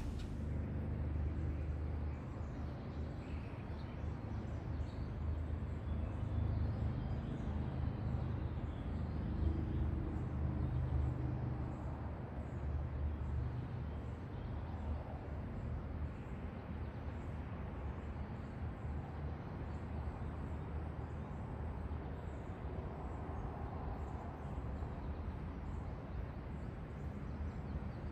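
Outdoor background ambience: a steady low rumble with faint, scattered high bird chirps.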